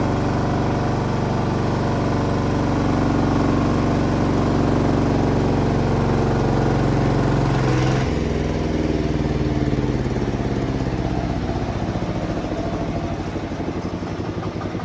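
Horizontal band sawmill running under power, its engine note steady while the blade saws through a large sapodilla log. About eight seconds in, the cutting noise stops and the engine note drops and slides lower, as the cut finishes and the machine eases off.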